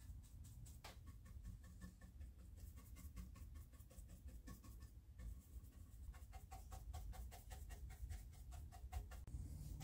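Faint, quick scratchy strokes of a stiff-bristled chip brush dabbing and spreading liquid rust activator over a painted surface.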